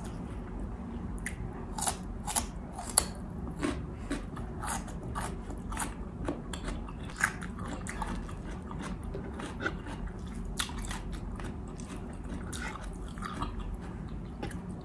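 A person eating bistek tagalog (Filipino beef steak) close to the microphone: chewing with wet mouth smacks and small crunches, many short irregular clicks throughout.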